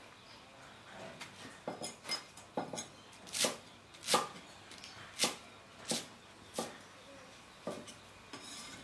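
Cleaver chopping garlic chives on a thick wooden chopping block: about ten separate knocks, unevenly spaced, starting about a second in.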